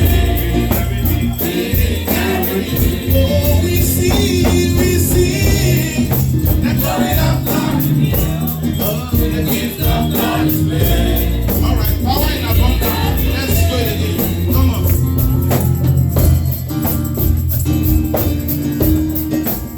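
Live gospel music from a church choir and band: steady bass and drums with shaker or tambourine, and singing voices.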